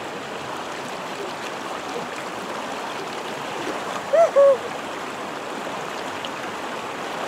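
River rapids rushing steadily over rocks and around people sitting in the current. About four seconds in, a person gives a short two-note vocal call.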